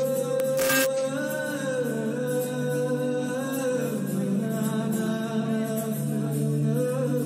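Live acoustic performance: a held, gently bending sung vocal line over strummed acoustic guitar.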